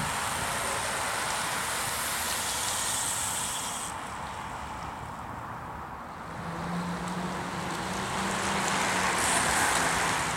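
A bunch of road racing bicycles passing: a steady hiss of tyres on tarmac that fades in the middle and swells again near the end as more riders come by. A low steady hum joins about six seconds in.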